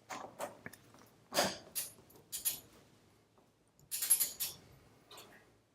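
Ratchet of a click-type torque wrench clicking in short strokes as a lubricated bolt is run down and tightened, with the loudest cluster about four seconds in.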